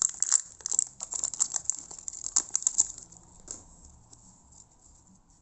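Crinkling and crackling of a trading-card pack wrapper being torn open by hand, a dense run of sharp crackles for about three seconds, a last click a little later, then the handling dies away.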